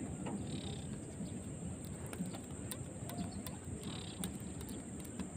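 Faint outdoor ambience: a steady high insect drone, with a couple of brief faint bird calls and a few light clicks.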